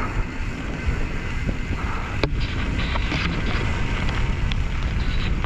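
Wind buffeting the microphone as a loud, steady low rumble, with a few sharp clicks, the strongest a little over two seconds in.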